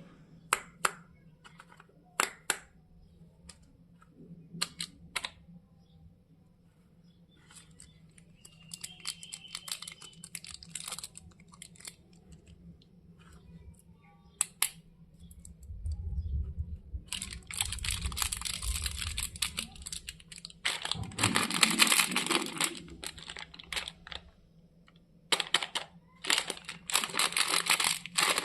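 Chocolate wrappers handled and opened by hand: scattered sharp clicks and taps in the first half, then long bursts of plastic and foil crinkling in the second half.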